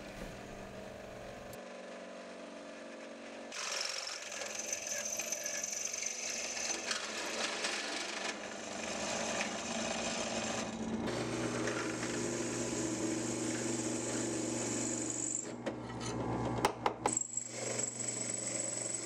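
Wen benchtop drill press running, its bit cutting through a 1084 high-carbon steel knife blank: a quieter motor hum for the first few seconds, then a steady, louder grinding noise with a high whine as the bit bites into the steel, with a few clicks near the end.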